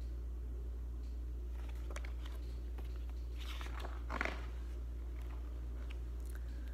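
Pages of a large paperback picture book being handled and turned, with soft paper rustles about two seconds in and a louder one around four seconds in, over a steady low hum.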